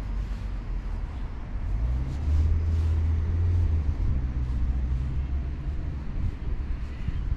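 Wind buffeting the microphone: a low rumble that swells about two seconds in and eases off near four seconds.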